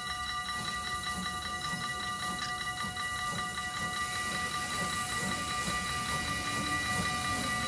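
A small steam tank locomotive passing slowly with its train of vintage coaches, its rumble and exhaust beats low underneath, while a level crossing warning bell rings steadily with a fast, ringing tone.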